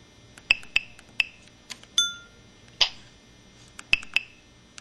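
Samsung SCH-E300 mobile phone playing its built-in sound effects: a string of short electronic clicks and blips, with a ringing chime about two seconds in and a brief swish a little under three seconds in.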